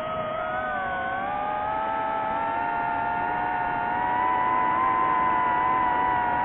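DJI FPV drone's motors and propellers whining in flight, a steady multi-tone hum whose pitch climbs a little early on and which grows louder about four seconds in.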